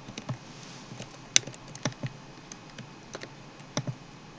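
Computer keyboard and mouse clicks: a dozen or so scattered single taps at an irregular pace, the sharpest about a second and a half in.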